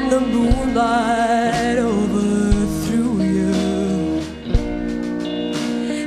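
Live band music: a woman singing lead with wide vibrato over bass guitar and drums, with a few drum hits about two seconds apart.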